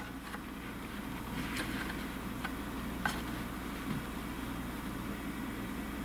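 Steady low background hum, with a few faint light clicks as a clear acrylic triangle is set against the sawn wood corner.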